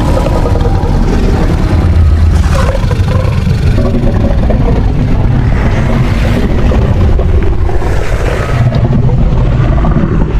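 A long, deep, rumbling kaiju-style monster roar sound effect with a rasping, growling texture and a few harsher swells along the way.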